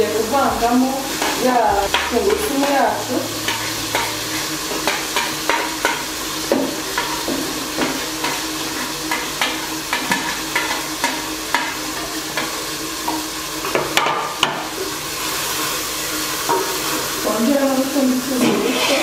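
Wooden spoon stirring and scraping food frying in oil in an aluminium pot, a steady sizzle with repeated small knocks of the spoon against the pot.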